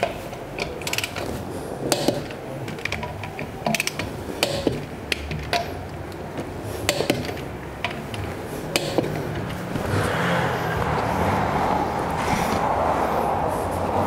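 Ratchet torque wrench clicking irregularly as a car's alloy wheel bolts are tightened to torque. About two-thirds of the way through, a steadier rasping noise comes in.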